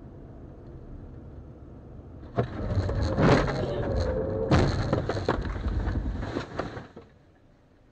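Car crash on a dashcam: low driving rumble, then about two and a half seconds in a sudden loud crash and clatter of impacts as the car leaves the road, with a wavering squeal. A second sharp jolt comes about two seconds later, and the clattering dies down near the end.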